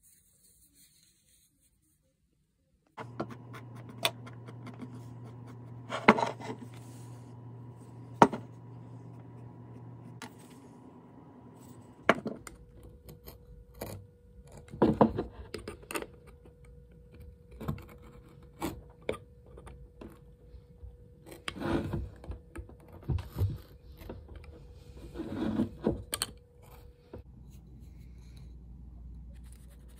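A hand-held knife whittling a poplar wood block: irregular scraping and shaving strokes with sharp clicks, starting a few seconds in.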